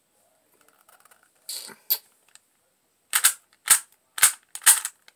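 3x3 Rubik's cube being turned by hand, its plastic layers clacking with each turn in quick succession, about two a second through the second half.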